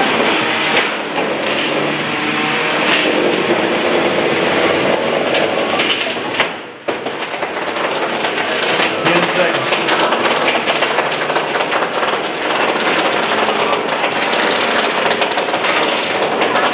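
3 lb beetleweight combat robots driving and clashing in the arena, with repeated knocks and clatters over a crowd's voices. The noise drops out briefly about seven seconds in.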